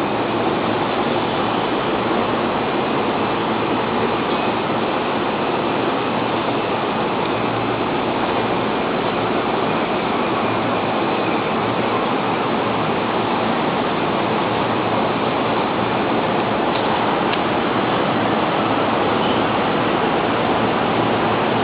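Steady, even rushing noise, like moving air or water, that holds unchanged throughout.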